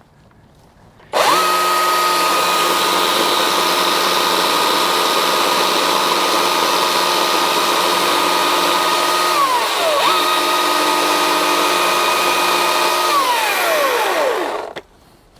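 EGO CS2005 20-inch battery chainsaw's brushless electric motor and chain starting up about a second in and running with a steady high whine. Its pitch drops and spins back up about nine seconds in, then winds down and stops near the end.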